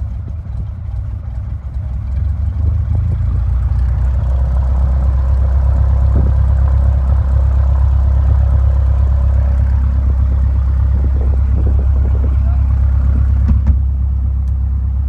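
Light aircraft's engine and propeller droning steadily in the cabin. The power comes up about two seconds in and then holds steady.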